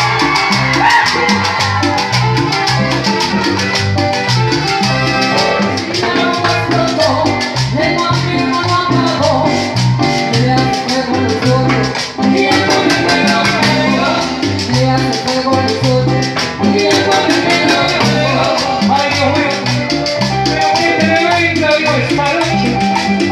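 Live cumbia band playing a steady dance rhythm on congas and timbales, with bass and melody over it.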